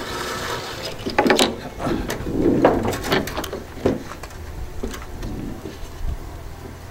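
Irregular scraping and rubbing with scattered sharp knocks, from hand work prying and cutting out a van's side window glass.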